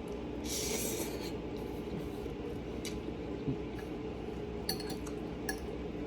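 Eating noodles: a short wet slurp about half a second in, then a few light clinks of a utensil against a dish.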